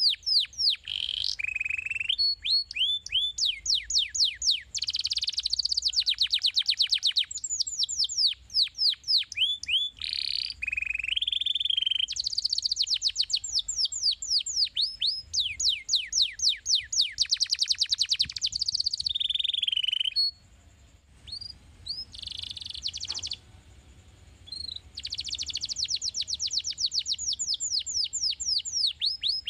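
Domestic canary singing a long, fast song of rapid trills, runs of quick falling notes one after another. It breaks off about two-thirds of the way through for a few seconds, with only a few short notes, then takes up the trills again.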